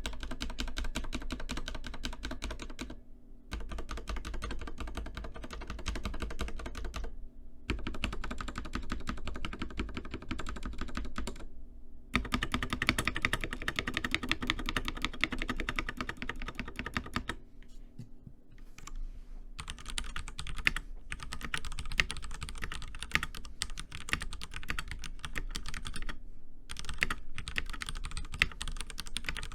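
Stock Ducky One 3 TKL mechanical keyboard with Cherry MX Red linear switches being typed on fast and steadily, in runs broken by short pauses. After a pause about two-thirds of the way through, the keystrokes sound brighter and carry less low thud.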